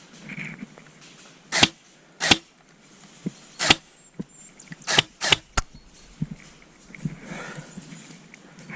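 Airsoft guns firing single shots: six sharp cracks spread over about four seconds, the last three in quick succession.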